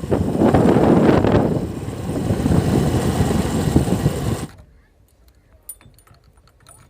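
Loud diesel machinery running close by, a dense rumble that cuts off abruptly about four and a half seconds in, leaving only faint clicks.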